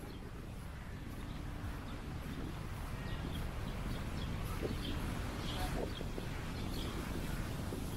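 Steady wind rumble on the microphone with faint, distant voices, growing a little louder over the stretch.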